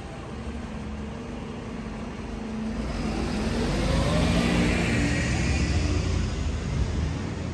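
A car driving past close by on the street: engine and tyre noise grow louder to a peak about four to five seconds in, the engine note rising, then ease off a little.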